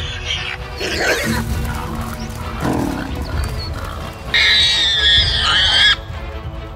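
Background music over animal sounds: low lion growls, then a loud high wavering squeal for about a second and a half, from a warthog seized by a lioness.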